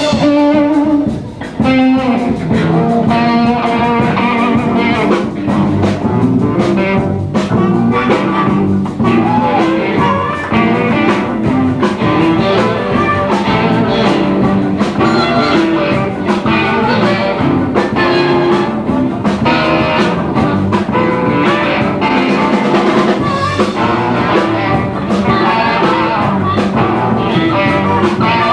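Blues band playing live: electric guitar, bass and drum kit, with a brief pause about a second in before the band comes back in.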